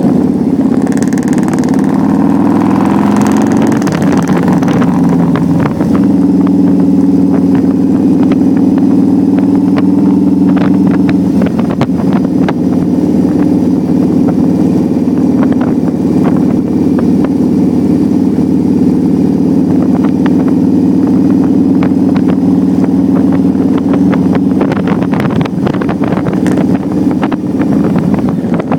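Cruiser motorcycle engine running on the road, heard from the bike's own handlebars. It climbs in pitch over the first few seconds, with breaks as it shifts up, then holds a steady cruising note.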